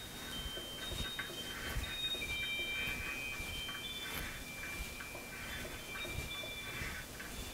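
A hand-held tool cutting into the cast-iron body of a milling machine. It squeals in thin high tones that start and stop, with light clicks.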